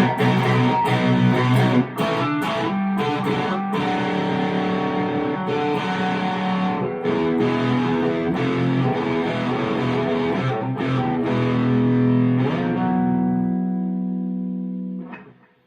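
Electric guitar played through a high-gain overdrive pedal into a Harley Benton amp: a run of distorted chords, ending on one held chord that is cut off sharply near the end.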